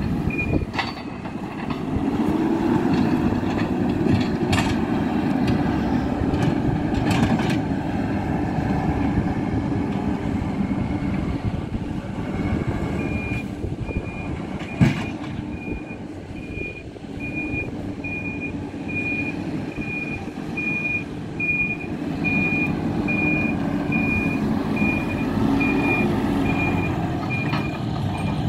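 Hidromek 102B K4 Supra backhoe loader's diesel engine running under varying load as it pushes fill. Its reversing alarm beeps evenly, about once a second, briefly at the start and again through the second half, and a sharp clank comes about halfway.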